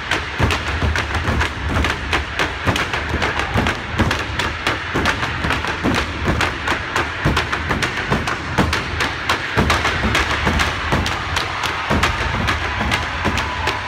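Fraternity step team stomping and striking canes on the stage floor in a fast, tight rhythm: a dense run of sharp thuds and taps, several a second.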